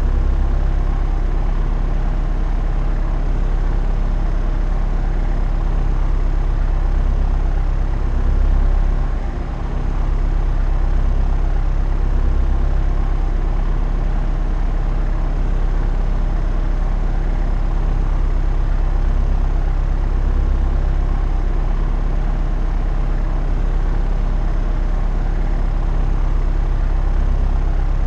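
Propeller aircraft in cruise flight: a steady, loud drone of engine and propeller with a deep hum, dipping briefly about nine seconds in.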